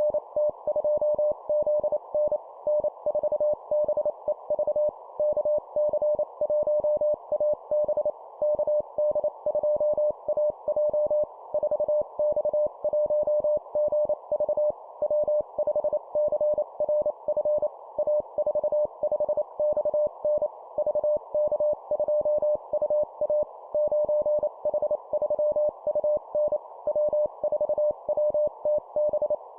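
Morse code (CW) call signs sent at 25 words per minute: a single-pitched beep keyed rapidly into dots and dashes, with short gaps between characters and calls. Under the beeps runs a steady band of hiss, as heard through a receiver.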